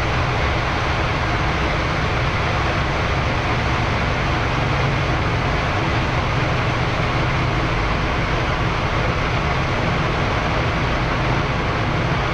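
Steady cockpit noise of a Boeing 787-10 on its takeoff roll, engines at takeoff thrust, with a low rumble underneath.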